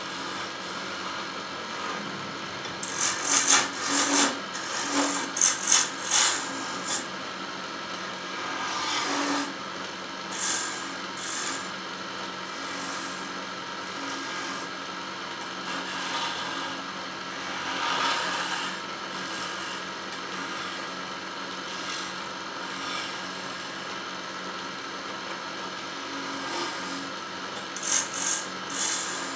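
Wood lathe running with a steady hum while a hand-held chisel cuts the spinning wooden spindle. The cuts come as loud rasping, scraping bursts, heaviest a few seconds in and again near the end.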